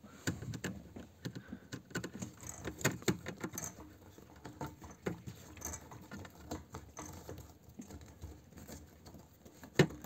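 Irregular small clicks and rubbing as a plastic fuel pump module is handled and a rubber sealing ring is fitted to it. A sharper click comes just before the end.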